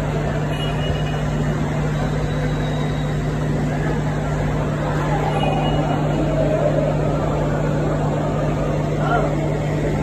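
Steady low hum and an even rushing wash of noise, as from a live seafood tank's water pump and aeration, with faint background voices. Two faint short high beeps sound, about half a second in and again about five seconds in.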